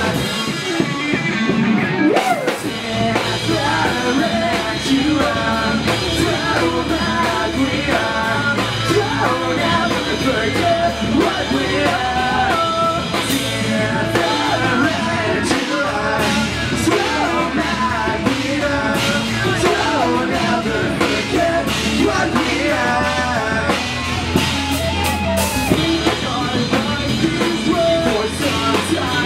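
Pop-punk rock band playing live: electric guitars and a drum kit, with a singer's vocals over them.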